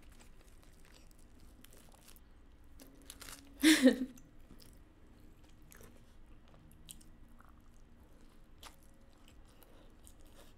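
Close-miked chewing of food, with scattered small crunches and mouth clicks. A short, louder mouth sound stands out about four seconds in.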